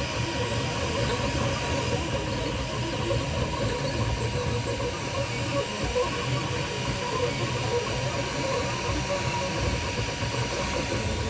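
Toybox 3D printer running mid-print: a steady hiss and low hum with a thin, constant high tone and faint wavering motor tones.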